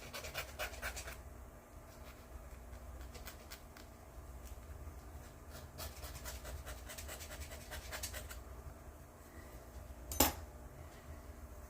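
Small file scraping a plastic model-kit part in rapid short strokes, first at the start and again a few seconds later, with one sharp click near the end.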